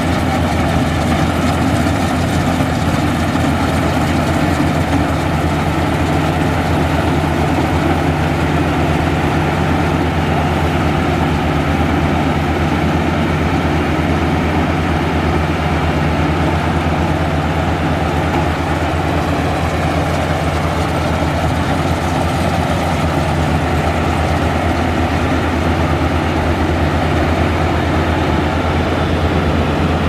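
Maxxi Bimo 110 Plus rice combine harvester running steadily while it cuts and threshes rice: a constant, loud low engine drone with the machinery's hum over it.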